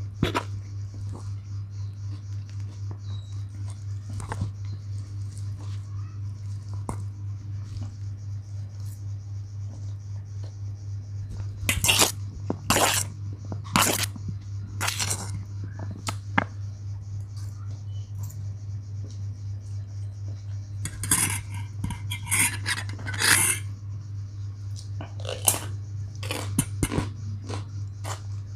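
Metal fork clinking and scraping against a stainless steel bowl of fried noodles, in groups of sharp clinks, over a steady low hum.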